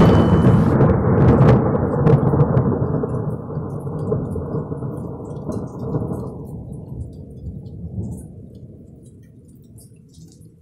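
Deep rumbling boom of an explosion sound effect, its rumble slowly dying away over about eight seconds.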